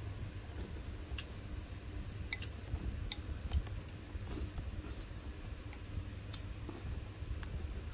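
Chopsticks clicking against the rim of a ceramic bowl as food is pushed into the mouth, with scattered sharp ticks every second or so and chewing, over a steady low hum.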